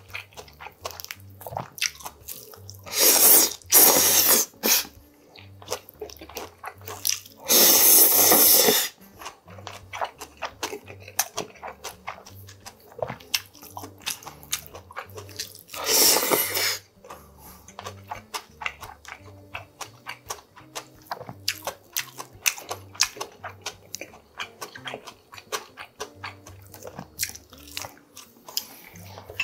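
Close-miked eating of bibimmyeon cold noodles: wet chewing and mouth clicks throughout, with three loud noodle slurps, about three, eight and sixteen seconds in.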